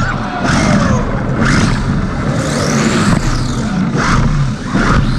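Small electric RC car's motor and drivetrain heard from on board, whining up and down in pitch with the throttle over rattling gear and wheel noise as the car drives.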